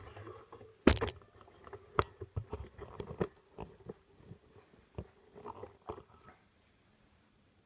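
A series of irregular knocks and clicks from hard objects being handled at a woodturning lathe, the loudest cluster about a second in, then scattered ones that stop after about six seconds.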